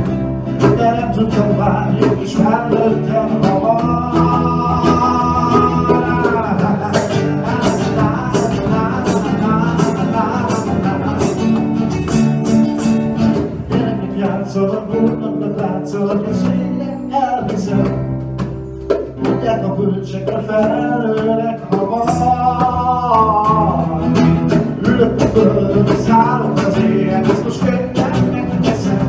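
Live acoustic band music: two acoustic guitars playing chords and picked lines over a frame drum struck in a steady rhythm, with a voice singing long held melody notes at times.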